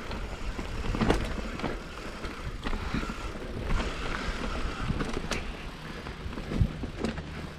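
Mountain bike rolling over a rough natural dirt trail: tyre noise and a low rumble, with scattered sharp knocks and rattles from the bike jolting over the ground.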